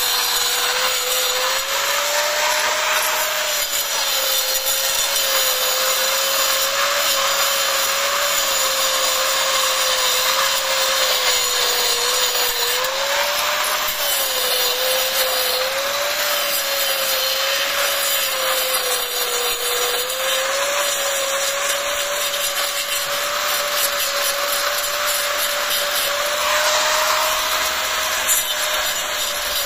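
Handheld angle grinder cutting grooves into red clay bricks: a steady, loud gritty cutting noise over a motor whine that wavers up and down in pitch as the disc bites into the brick.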